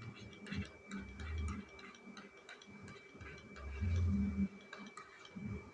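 Faint, irregular clicks and taps of a stylus on a pen tablet as handwriting is written out, with a low hum twice.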